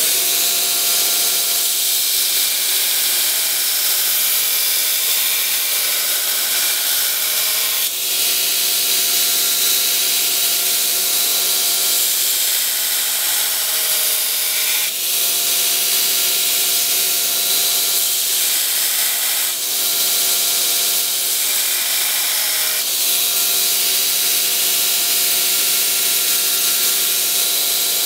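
Belt grinder running with a steel knife blade held flat against the abrasive belt on the platen: a steady grinding hiss over the machine's hum while the bevel is flat-ground. The sound dips briefly about four times as the blade is lifted and set back on the belt.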